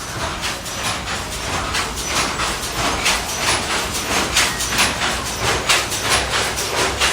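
Silk handloom weaving, clacking in a steady, fast rhythm of about three strokes a second.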